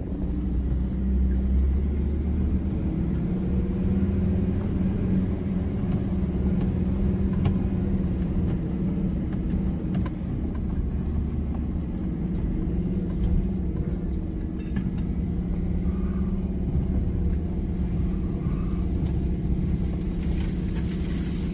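Ford Ranger PX3 4x4 driving on a dirt track, its engine and running gear a steady low drone.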